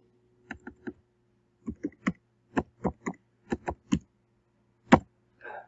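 Computer keyboard typing: three quick keystrokes erasing the old file name, then a run of nine keystrokes typing 'recursion', and one louder keystroke about five seconds in as Enter is pressed to run the command.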